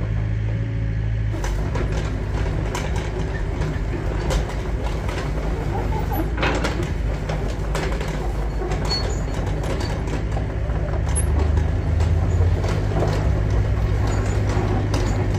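Yanmar B50-2 mini excavator travelling on its tracks, its diesel engine running steadily, with knocks and clanks from the undercarriage. The engine note changes about a second and a half in, as the machine sets off.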